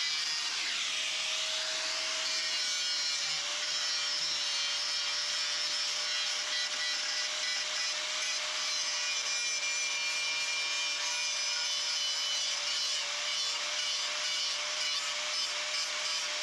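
A handheld power tool abrading rusty sheet steel on a fender, running steadily throughout. Its pitch dips and recovers about a second in.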